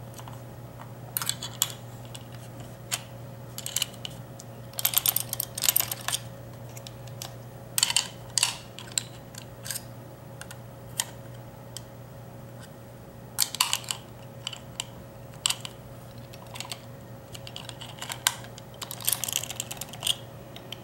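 Irregular short clicks and clusters of small metallic clicks and rattles from a Kwikset doorknob's parts being handled as it is taken apart.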